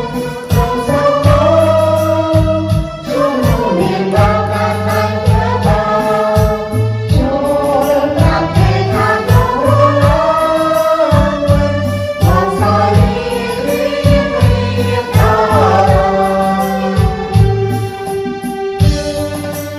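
A small mixed group of men and women singing the refrain of a Khmer Christian hymn together over steady instrumental backing; the singing ends shortly before the end.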